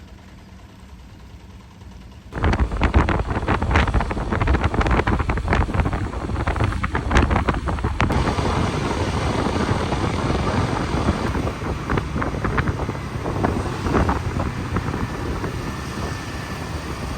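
Quiet outdoor ambience, then about two seconds in an abrupt switch to loud wind buffeting the microphone while riding on a motorbike taxi through traffic, with the bike's engine running underneath.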